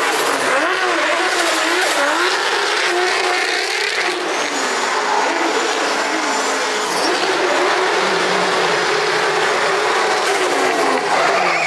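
Toyota Supra drift car held at high revs, its engine pitch wavering up and down without a break as it drifts in circles, over the hiss and squeal of spinning rear tyres.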